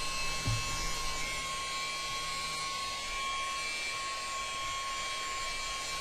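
USB-powered mini keyboard vacuum cleaner running steadily: its small motor gives a constant high whine over a hiss of air rushing out through its vent.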